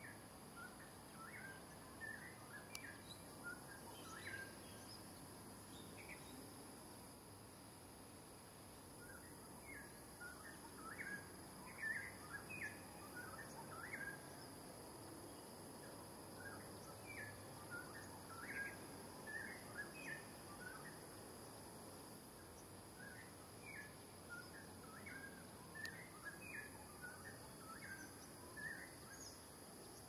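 Faint outdoor ambience: a steady high insect drone, with scattered clusters of short chirping calls throughout.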